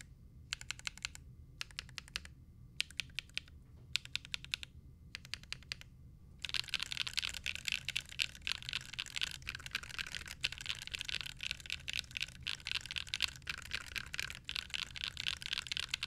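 Typing on a rebuilt 60% mechanical keyboard in a clear acrylic case with clone keycaps. It starts as short bursts of key clacks with pauses between them, then about six seconds in becomes steady, fast, louder typing.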